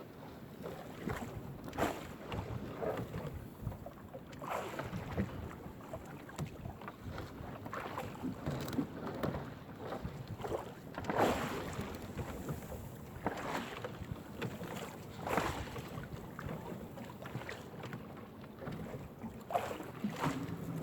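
Wind buffeting the microphone on a small fishing boat at sea, with irregular water splashes and knocks against the hull every second or so.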